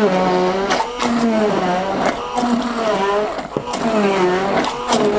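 Yissvic 1200-watt stick blender motor running at speed, puréeing whole tomatoes without water in its beaker. The pitch sags and recovers about once a second as the blade takes up the load.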